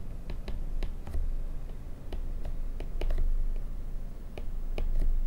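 Stylus tip tapping and clicking on a tablet's glass screen while handwriting, irregular light clicks a few times a second, over a low background rumble.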